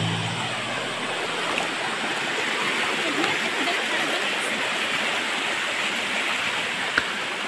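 Steady rushing of water from a rocky stream running over stones, with a waterfall upstream. There is one brief click near the end.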